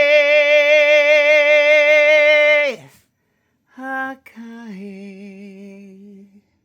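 A single unaccompanied voice chanting in wordless syllables, holding one long note with vibrato that breaks off about three seconds in; after a short silence comes a brief note and then a softer, lower held note.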